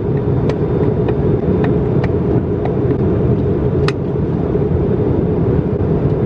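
Steady low drone of an airliner's cabin noise, with a few faint light clicks, the clearest about four seconds in.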